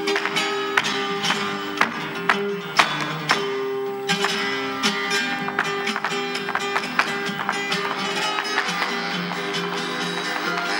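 Live flamenco: acoustic guitars playing, with sharp percussive taps of the dancer's footwork on the stage floor, loudest and densest in the first four seconds.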